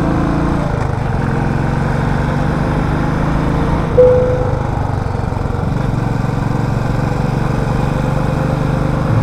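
Motorcycle engine running steadily under way, with small shifts in pitch. About four seconds in, a short, loud single tone sounds briefly.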